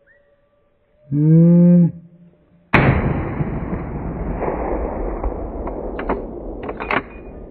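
A short, low call with a strong pitch about a second in, then a single hunting-rifle shot that cracks and rolls away in a long echo for several seconds. A few sharp clicks follow near the end.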